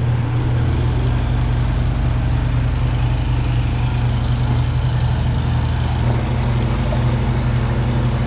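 A motor or engine running steadily with a constant low hum; a slightly higher tone joins in about six seconds in.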